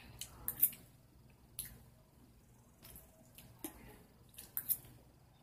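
Eating sounds: a string of short, wet smacks and clicks in small clusters, about a second apart.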